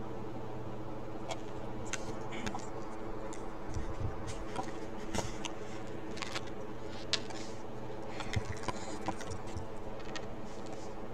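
Steady electrical hum on a headset microphone, with scattered soft clicks and rustles as the headset and mic are handled.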